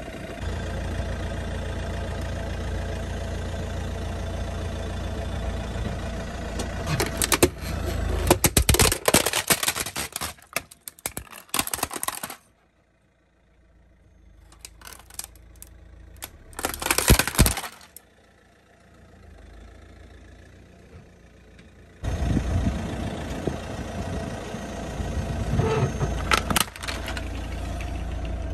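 Car engine running steadily while its tyre rolls over plastic toys, cracking and crunching them in dense bursts. The engine sound drops out suddenly midway and more plastic cracking follows over a quieter background, then the engine hum returns, with a few more cracks near the end.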